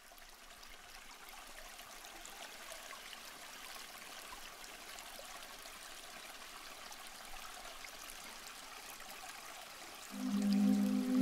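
Soft trickling of running water, like a small stream, fading in and holding steady. About ten seconds in, new-age music with held low notes comes in over it.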